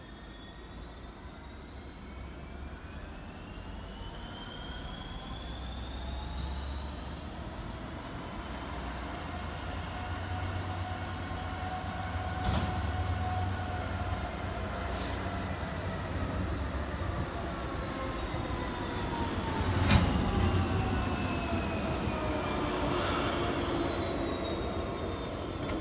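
London Underground train running at the platform: its electric traction motors whine in several tones that rise in pitch and then fall again, over a low rumble that grows steadily louder, with a few sharp knocks from the wheels and rails.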